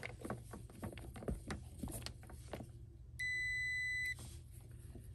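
Fieldpiece SC640 clamp meter's continuity beeper giving one steady beep just under a second long, about three seconds in: the condensate float switch is showing continuity. Before it, small clicks and rustles of handling the test leads and wires.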